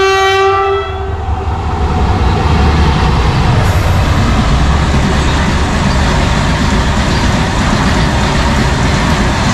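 A freight train's locomotive sounds its horn, one steady note with many overtones that dies away about a second in. The locomotive and a long rake of open steel wagons then roll close past with a steady heavy rumble of wheels on rails.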